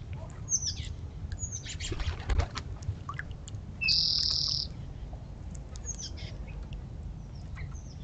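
Birds at a bird bath where acorn woodpeckers gather: several short high chirps that fall in pitch, and a flurry of wingbeats about two seconds in. The loudest thing is a steady high buzzing note lasting just under a second, about four seconds in. A low wind rumble sits under it all.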